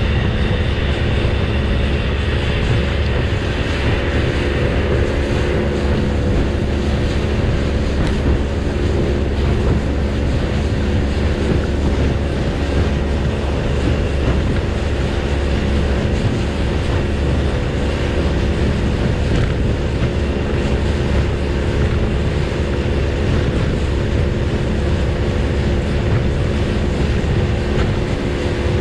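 Small fishing boat's engine running steadily at cruising speed, with a constant hum under the rush of water along the hull.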